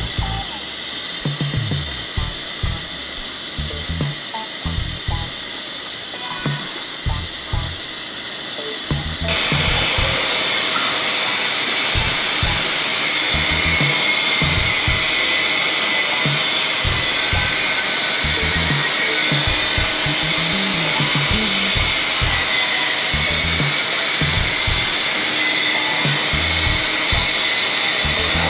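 CNC machining centre cutting an injection mould, a steady high whine and hiss from the cutting that turns abruptly into a broader, louder hiss about nine seconds in. Background music plays along.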